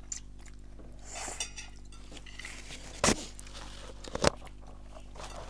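Cutlery knocking against a dish while eating, with two sharp knocks about three and four seconds in over a low steady hum.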